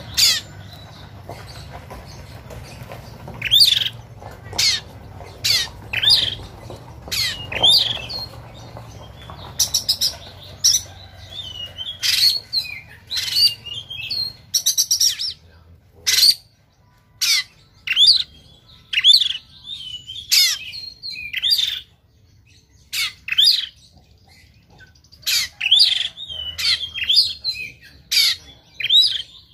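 Oriental magpie-robin singing its aggressive fighting song: loud, harsh, shot-like notes and whistled phrases, one about every second, with some quick rattling runs of repeated notes.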